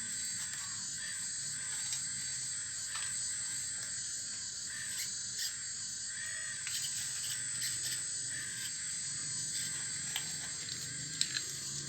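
Full-metal RC excavator at work: a steady high whine from its small electric motors, with scattered sharp clicks as the bucket scrapes through stones and soil.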